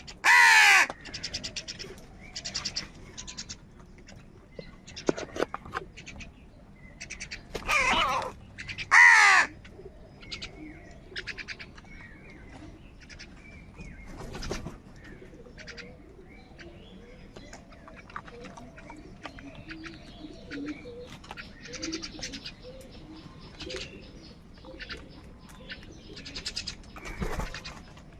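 A group of crows cawing: loud harsh caws about half a second in and again around 8 and 9 seconds, with many fainter caws from other birds in between.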